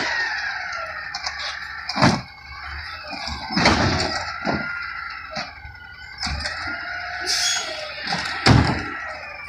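Garbage truck working at the curb, its machinery whining while trash carts are handled, with several hard bangs. The loudest bangs come about two seconds in, near four seconds and near the end. A short burst of air hiss comes about seven seconds in.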